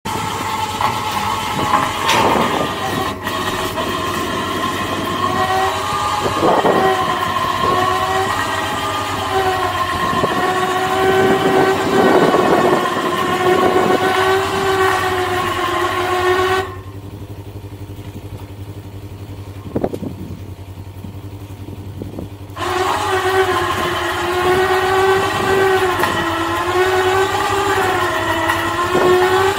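Bravex 12V 3500 lb electric winch whining steadily as it pulls a Polaris RZR up a ramp onto a truck rack, the pitch wavering a little with the load, with a few knocks along the way. The winch stops for about six seconds just past halfway, then starts pulling again.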